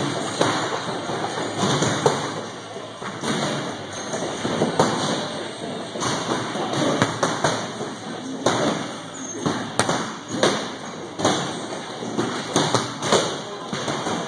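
Heavy battle ropes slapping against a gym mat, and later punches and kicks landing on handheld kick shields: a run of irregular sharp thuds, over background voices.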